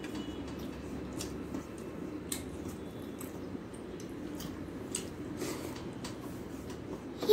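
Fingers mixing rice into chicken curry gravy on a steel plate: soft wet squishing with scattered small clicks, over a low steady hum. A brief sharp knock comes right at the end.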